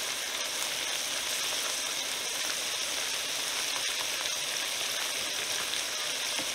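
Sliced bell peppers and onions sizzling in olive oil in a frying pan over medium heat: a steady, even hiss.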